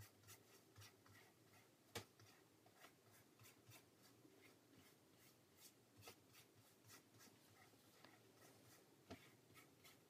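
Faint, irregular scratchy strokes of a paintbrush laying oil paint onto a painting panel, with a sharper click about two seconds in.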